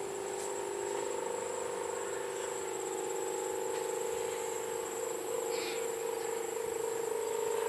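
Kite hummer (sendaren) droning steadily in the wind: one held hum with a pulsing, rasping buzz, the 'ngorok' snore it is set up to make.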